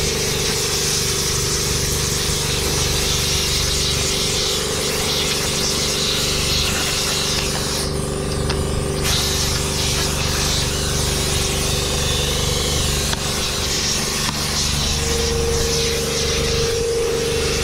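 Snowcat engine running steadily as it travels over snow, with a continuous hiss over the engine drone.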